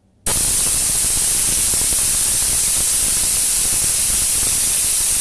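Compressed-air blow gun blasting through a homemade venturi pump, drawing water up a copper tube from a jar and spraying it out as a fine mist. It is a loud, steady hiss that starts suddenly just after the start.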